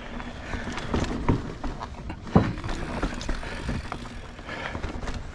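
Mountain bike rattling over rough singletrack: tyres on dirt and a run of irregular knocks and clatter from the frame and drivetrain, with one hard thump about halfway through.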